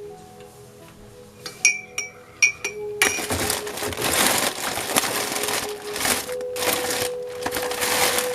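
Soft background music with held tones; a few sharp glassy or metallic clinks about a second and a half in, then a loud steady hiss from about three seconds in.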